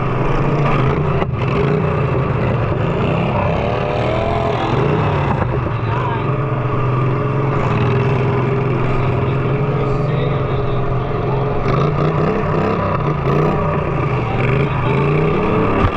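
Several small riding-lawnmower engines running together, their pitches rising and falling as they rev, with a single knock about a second in.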